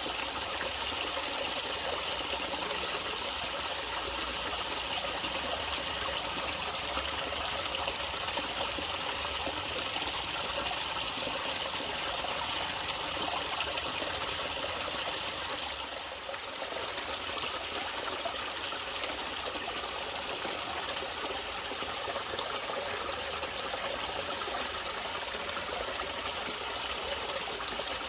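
Running water of a small stream trickling steadily, with a brief dip in level a little past the middle.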